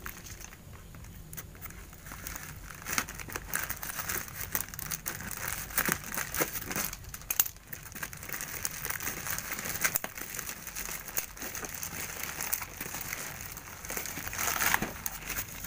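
Plastic packaging crinkling and rustling in irregular small crackles as hands pull open a plastic courier mailer bag and the bubble wrap inside.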